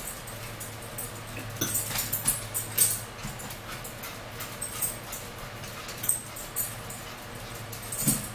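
Close-up eating sounds: wet chewing and lip-smacking clicks in irregular clusters, over a steady low hum.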